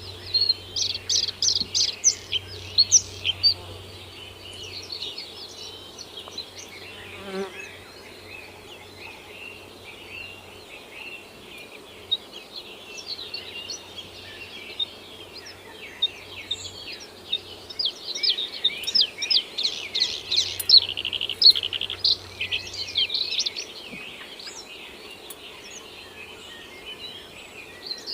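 Small songbirds chirping and twittering in quick, overlapping trills. The chirping is densest in the first few seconds and again about two-thirds of the way through, and thinner in between.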